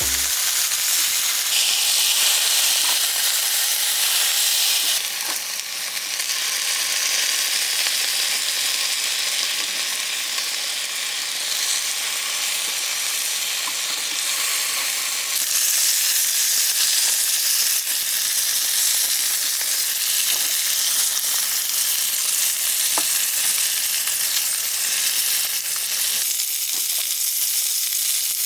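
A steady sizzling hiss with a few faint ticks, changing in character several times.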